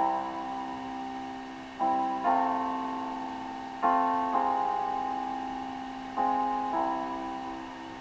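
Background piano music: slow chords struck in pairs about every two seconds, each left to ring and fade.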